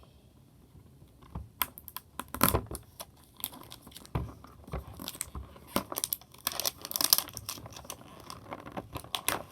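Plastic toy packaging crinkling and rustling as it is handled and tugged open, in quick irregular crackles that start about one and a half seconds in.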